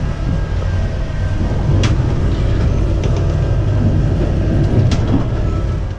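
Steady, loud low rumble of a sailing catamaran under way offshore in rough seas, with two sharp knocks about two and five seconds in.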